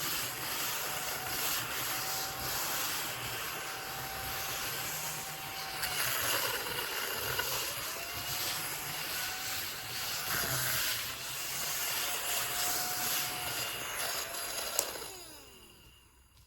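Small AA-battery mini desktop vacuum cleaner running, its motor whir mixed with a rubbing, brushing sound as it is worked over a surface; the motor pitch dips and recovers a few times. About fifteen seconds in it is switched off and the motor winds down.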